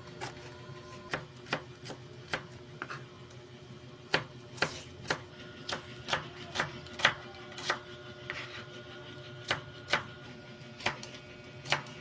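Irregular sharp clacks of kitchen utensils being worked during cooking, one or two a second, over a faint steady hum.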